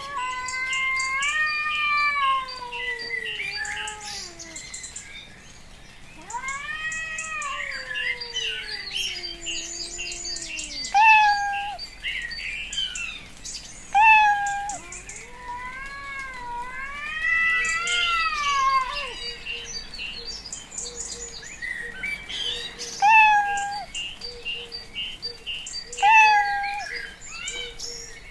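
Cat meowing: three long drawn-out meows that rise and then fall in pitch, and four short single meows in between. Small birds chirp quickly and high in the background throughout.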